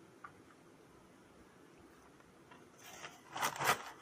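Crunching of a crispy cheese snack being bitten and chewed: a short run of crackly crunches near the end, after a quiet start.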